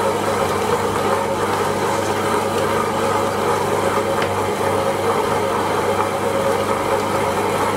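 Premier Compact tabletop wet grinder running steadily, its motor humming as the drum turns the stone rollers over soaked urad dal, grinding it into idli batter.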